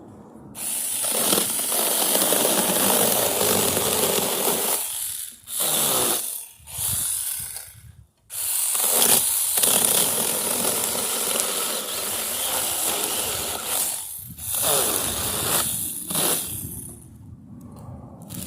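Chainsaw cutting through tree branches, running in long stretches of several seconds with a few short bursts and brief breaks between cuts.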